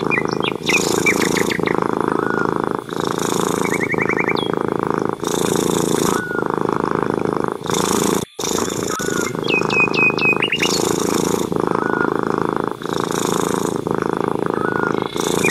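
Long-haired grey cat purring steadily, the purr rising and easing with each breath. A few short bird chirps and trills are heard over it.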